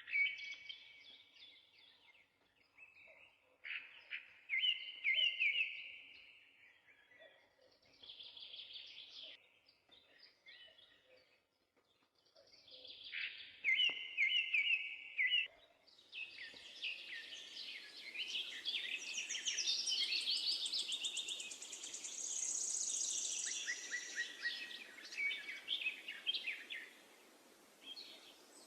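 Songbirds singing in short repeated phrases with pauses between. About halfway through, several birds overlap in a denser chorus over a steady hiss.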